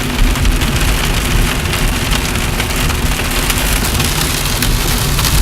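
Steady rain falling on a car's roof, a dense patter of many small drop clicks, heard from inside the car over a low rumble.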